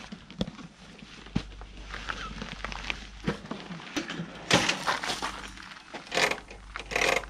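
Handling sounds of camping gear: scattered clicks and light knocks with short bursts of rustling, as a bag is lifted by its strap and a portable kerosene heater is set down and adjusted. The loudest rustles come about halfway through and near the end.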